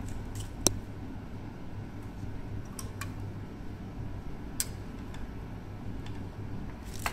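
Wire cutters snipping a thin hookup wire at a break glass unit: a handful of short sharp clicks, the sharpest well under a second in, over a steady low hum.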